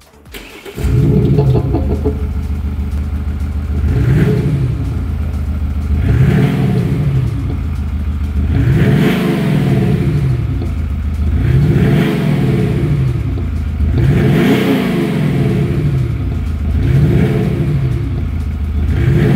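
Mercedes-Benz G350d diesel started about a second in, then revved about seven times, roughly every two and a half seconds. An aftermarket exhaust sound generator plays through the quad tailpipe tips, its synthetic exhaust note rising and falling with each rev.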